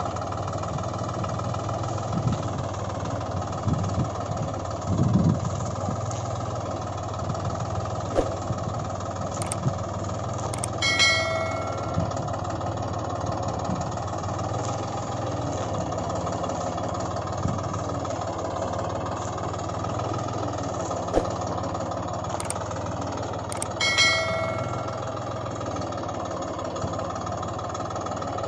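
Steady truck engine drone, as of a vehicle idling or running slowly. Two short ringing tones sound, one about 11 seconds in and one about 24 seconds in.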